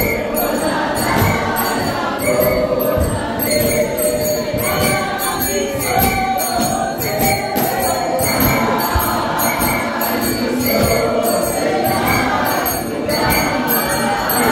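Church congregation singing a hymn together in Zulu, unaccompanied by instruments except for a steady percussive beat of about two strokes a second that keeps time.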